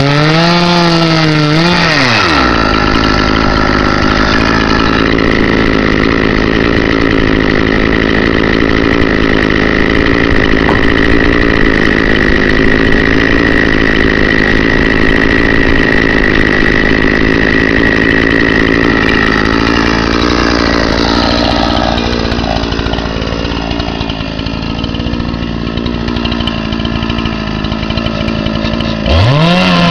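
Two-stroke chainsaw on a chainsaw mill. It idles, opens to full throttle about two seconds in and runs steadily through a rip cut along a log, then drops back to idle just before the end.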